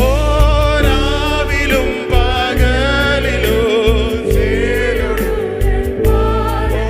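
Christian worship song: singing with wavering held notes over a steady low instrumental accompaniment.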